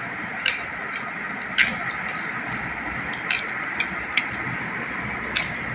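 Rice and curry being mixed by hand on a plastic plate: about six short, sharp clicks and crackles scattered over a steady background hiss.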